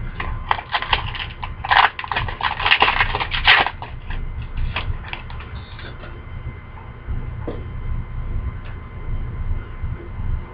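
Crinkling and clicking of trading cards and plastic packaging being handled: a dense run of crackles in the first few seconds, then scattered single ticks, over a steady low hum.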